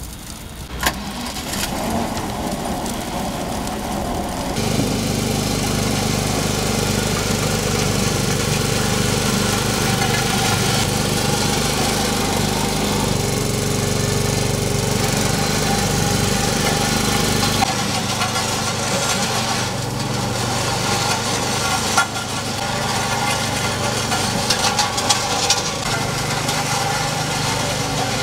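Engines of road-patching machinery, a road roller among them, running steadily. The engine sound changes about five seconds in and again just past halfway, with a few sharp knocks later on.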